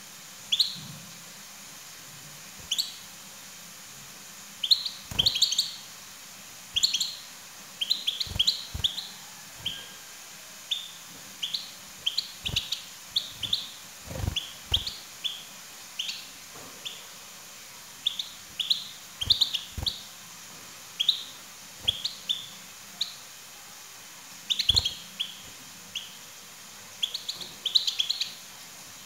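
European goldfinches chirping and twittering: short high notes in quick bursts of a few at a time, repeated with short pauses. A few low thumps come with some of the bursts.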